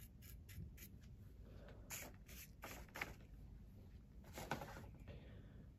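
Faint scratchy brush strokes as a brush dabs powdered pastel onto a plastic model container: a run of quick light ticks in the first second, then a few longer, louder scrapes.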